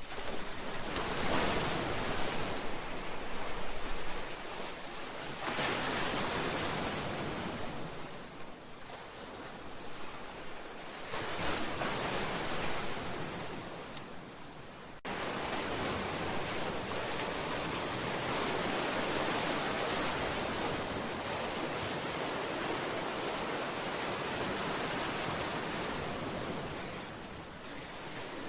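Sea waves surging against a seawall and breakwater, coming in as swells of rushing water every few seconds. About halfway through the sound jumps abruptly to a steadier, continuous wash of surf.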